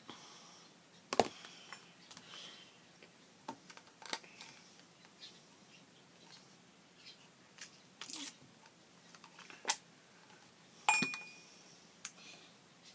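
Scattered sharp clicks and knocks with soft rustling in between, from a metal kitchen utensil and fingers working an orange open. The sharpest knock, about eleven seconds in, rings briefly.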